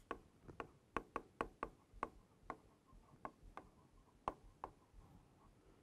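Stylus tapping and clicking on the glass of an interactive touchscreen board while handwriting words: faint, sharp, irregular ticks, a few a second, with a brief pause midway.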